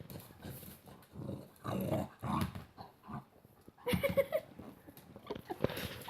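Pet dog growling and grumbling in several short bouts, with a brief higher, whiny vocal sound about four seconds in.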